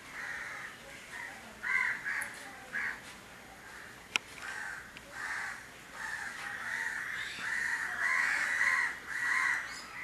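Crows cawing over and over, with a single sharp click about four seconds in.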